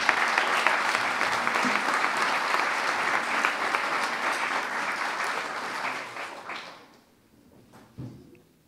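Audience applauding, dense clapping that dies away after about six seconds.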